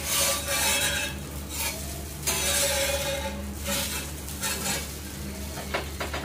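A flat metal spatula scraping and sliding under a dosa on a hot cast iron tawa in several rough strokes, with light sizzling from the cooking dosa.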